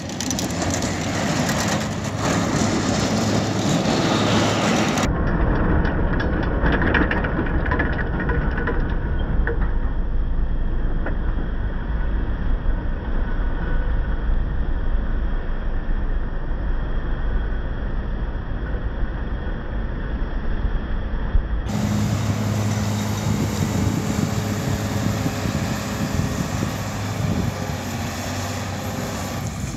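Wheel loader's diesel engine running steadily as it pushes snow with a pusher box. It turns to a deep rumble from about five seconds in as the machine passes close, and settles back to a steadier engine hum at about twenty-two seconds.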